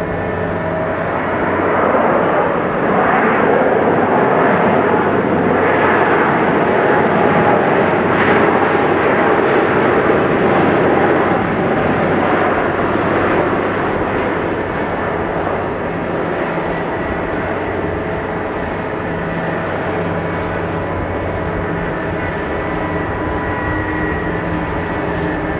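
Boeing 777-300 jet airliner on its landing roll on a snowy runway: the engines' rushing noise swells about two seconds in, as reverse thrust blows up snow, stays loud for about ten seconds, then eases off to a steadier jet-engine hum with whining tones.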